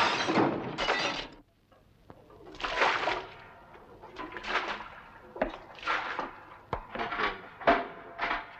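Fire taking hold: a loud rush of noise at the start, then after a brief lull, swelling rushes and a quickening series of sharp cracks and pops.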